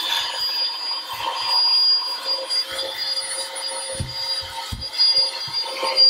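Small handheld 3-in-1 desk vacuum cleaner running over a keyboard: a steady, high motor whine, with a few soft knocks about four to five seconds in.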